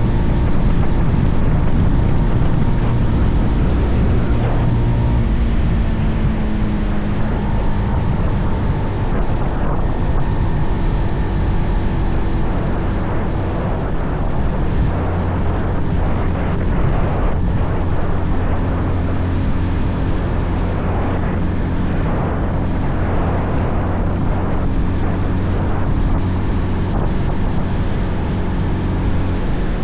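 Bajaj Pulsar 220F's single-cylinder engine running under way, its note changing in the first few seconds and then holding steady at cruising speed. Wind buffets the microphone throughout.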